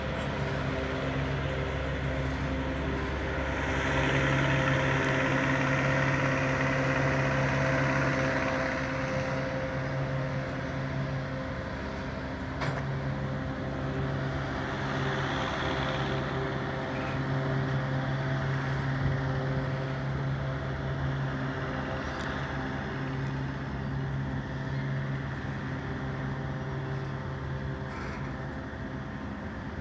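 Intermodal freight train's spine cars loaded with trailers rolling past: a steady rumble of steel wheels on rail with a constant hum, louder for a few seconds early on, and a few sharp clicks.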